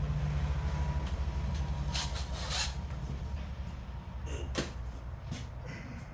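A steady low rumble with a few clicks and scraping knocks of hand work, as screws are taken out to remove the light from a fiberglass camper shell; the sharpest clicks come about two seconds in and again past the midpoint.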